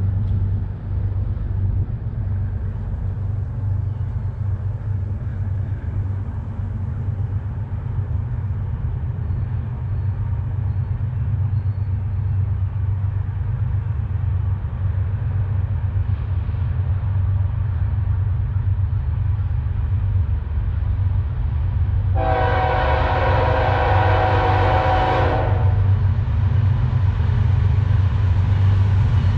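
GE ES44DC diesel locomotive approaching, its low engine rumble growing gradually louder. About three-quarters of the way in it sounds one long horn blast of several tones together, lasting about three seconds, and the horn starts to sound again at the very end.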